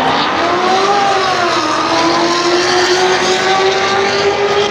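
Drag-race car's engine accelerating: its pitch climbs over the first second, then holds high and nearly steady, creeping up slightly toward the end.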